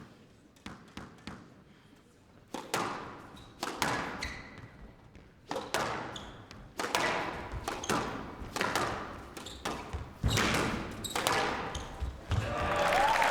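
Squash rally: the ball struck by rackets and smacking off the court walls, sharp irregular cracks about one to two a second, each with an echo. Spectators start applauding near the end.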